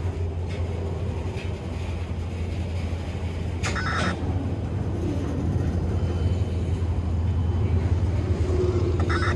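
A freight train carrying long welded rail rolls past with a steady low rumble. Two brief higher-pitched bursts stand out, one about four seconds in and one near the end.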